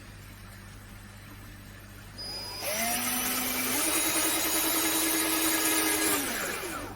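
Power drill starting about two seconds in and drilling holes for cable ties, its motor pitch stepping up once as it runs, then winding down and stopping near the end.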